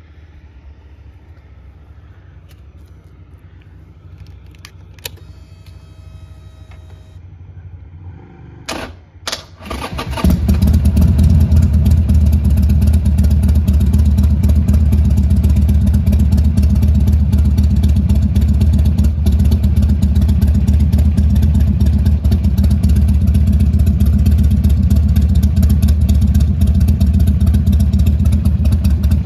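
Buell XB12S Lightning's 1203 cc air-cooled V-twin being started: a click and a brief whine about five seconds in, a couple of sharp bursts of starter cranking just before the ninth second, then the engine catches about ten seconds in and idles steadily and loudly.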